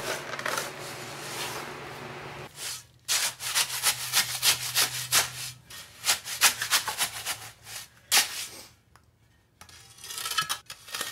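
A shovel scraping and stirring wet concrete in a plastic 5-gallon bucket: a fast run of rasping strokes from about two and a half seconds in until about eight seconds, then a few more near the end. Before the strokes start, an electric fan's steady hum is heard.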